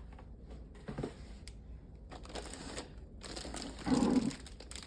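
Packaging being handled: plastic and cardboard rustling and crinkling in several short spells, with a louder rustle and bump about four seconds in.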